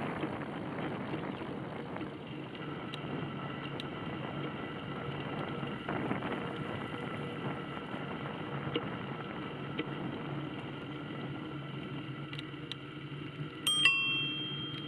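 Bicycle being ridden along a paved path, with steady rolling and wind noise. Near the end a bicycle bell rings out once, a bright ring that fades.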